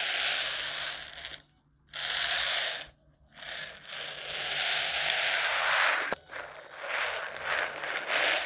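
Turbo Racing C64 1:76 micro RC drift car's tiny electric motor and gears whirring as it drives. The whir cuts out twice, about one and a half and three seconds in, as the throttle is let off, and dips briefly near six seconds.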